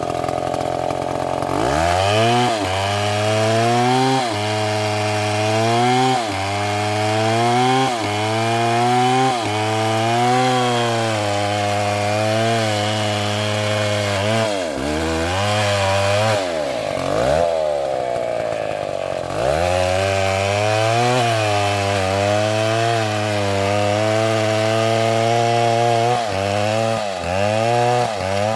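Stihl two-stroke chainsaw revving up about two seconds in and ripping lengthwise through a log, its engine note sagging and recovering every couple of seconds under the load of the cut. About halfway through it drops back to idle for a few seconds, then revs up again and keeps cutting.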